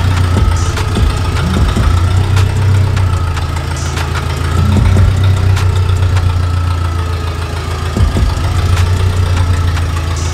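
Propane-fuelled Komatsu forklift engine running steadily as the forklift pushes a heavy SUV sideways across the floor: a loud, even low drone with a faint whine above it and scattered clicks.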